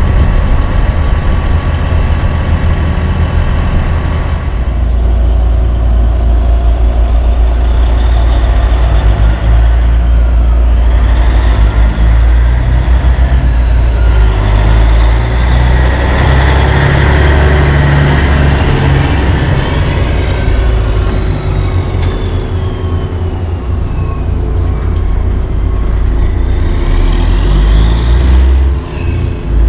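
Kenworth dump truck's Cat diesel engine pulling away and driving past: a deep, steady engine note with a high whistle that falls slowly in pitch through the middle as the truck moves off.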